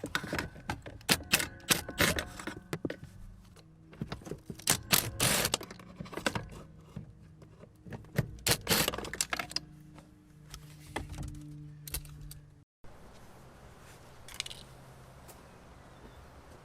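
Tools and metal parts clattering, knocking and scraping in an irregular run of sharp clicks and clanks as parts are stripped from a car's engine bay. The clatter stops abruptly about three-quarters of the way through.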